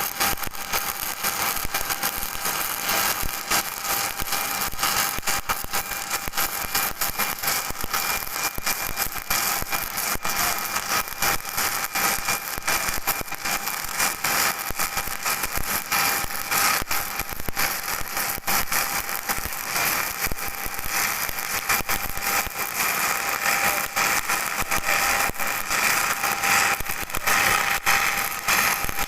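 Electric welding arc crackling and sizzling steadily, a dense hiss of fine crackles with a faint steady whine underneath.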